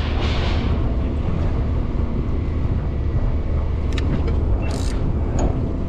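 Steady low rumble of strong wind buffeting the microphone over open water, with a few light clicks and a brief hiss about four to five seconds in.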